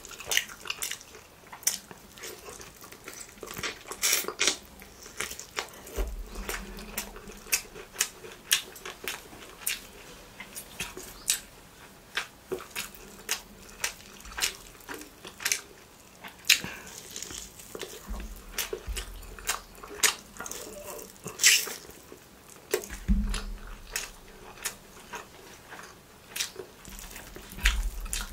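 Close-miked mouth sounds of eating parotta and chicken: chewing with wet lip smacks and clicks, irregular, several a second.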